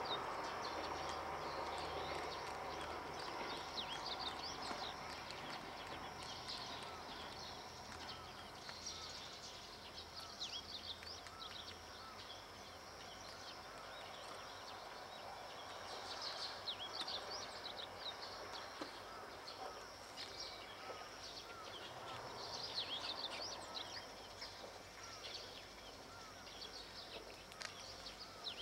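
Small birds chirping over and over, above a faint distant rumble that fades and swells again: the Tango Explorer diesel railcar still out of sight up the line, its sound echoing ahead of its arrival.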